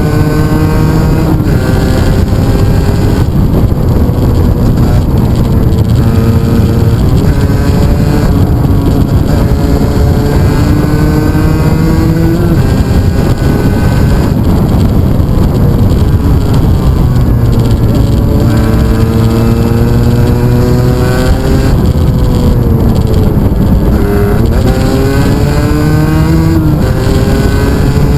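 The onboard 125 cc motorcycle's engine pulling up through the revs and dropping back several times as the rider shifts gear and eases off for bends, with wind rushing over the microphone.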